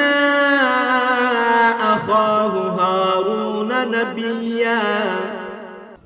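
A man's voice reciting the Quran in Arabic in the melodic tajweed chant style. He holds long, gliding notes whose pitch sinks gradually, and the phrase fades out at the end.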